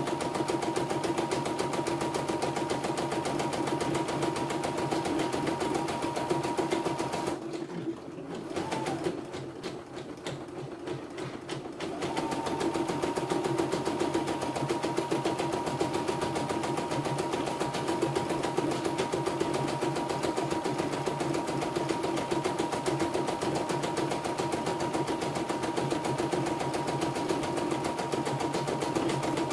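CNY E960 computerised embroidery machine stitching at a steady, fast needle rate, a continuous even mechanical running sound. It stops for a few seconds about a quarter of the way in, then starts stitching again at the same pace.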